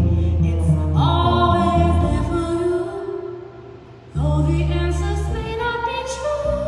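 A woman singing long held notes over upright double bass notes. One sung phrase starts about a second in, the music drops away briefly, and a new phrase with a low bass note starts about four seconds in.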